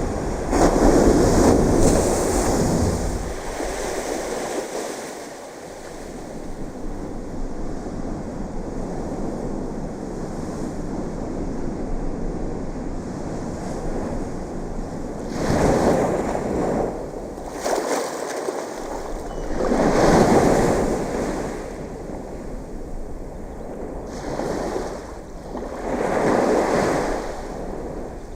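Ocean waves breaking and washing ashore: a steady rushing wash with four louder surges of surf at irregular intervals.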